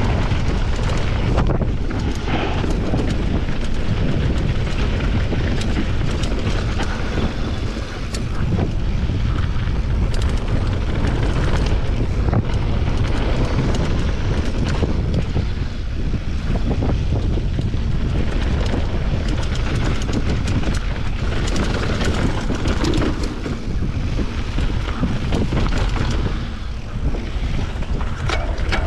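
Wind buffeting the microphone over the rumble and clatter of a mountain bike riding fast down a rough bike-park trail, with many small knocks and rattles.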